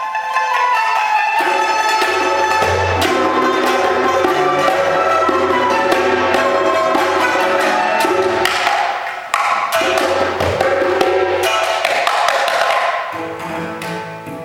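Small Chinese chamber ensemble of pipa, dizi flute, cello and percussion playing a lively Xinjiang folk dance tune, with sharp percussive strokes marking the rhythm. Low cello notes join about a second and a half in.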